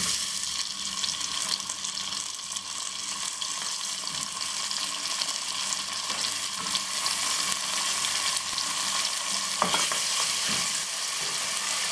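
Chopped tomatoes, onions and whole spices sizzling in hot oil in an aluminium pressure cooker, stirred with a wooden spatula. The tomatoes are frying down until soft.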